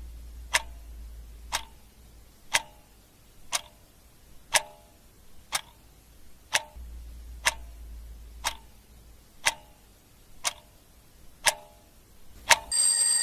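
Clock-style ticking, one sharp tick about every second, counting down a timer. Near the end a loud ringing bell or alarm sets off as time runs out.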